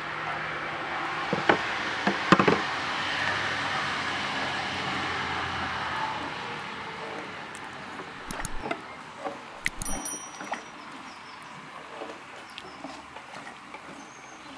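Wooden spoon stirring and scraping yogurt in a large aluminium pot, with a few sharp knocks of wood against the pot about two seconds in and a scatter of lighter knocks and clicks a little after halfway.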